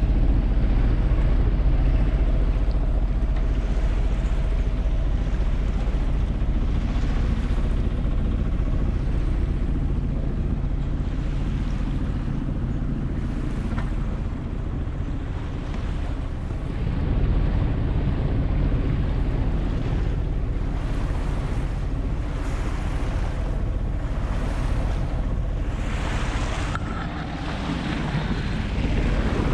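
Sailboat motoring under its inboard engine, a steady low hum, with water rushing along the hull and wind buffeting the microphone, which grows louder in stretches near the end.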